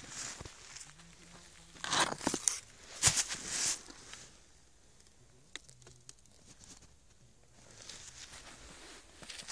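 Hands scraping through snow and rustling a plastic bag while pulling a geocache container out from under a snow-covered rock: a few short scrapes about two and three seconds in, then quieter, faint rustling near the end.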